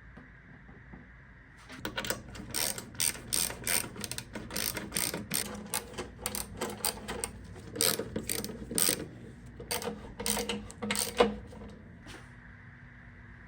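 A run of irregular, sharp metallic clicks and clacks, roughly two or three a second, starting about two seconds in and stopping shortly before the end.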